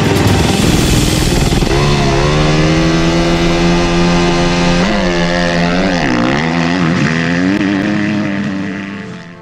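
Motocross bike engine running, steady at first and then revved up and down several times in quick throttle blips, fading out near the end.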